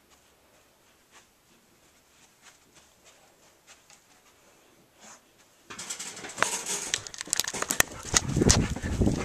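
Faint scattered ticks, then from about six seconds in a loud burst of scuffling and rustling with many sharp clicks and thumps: rough play-fighting with a dog, the camera being jostled and handled.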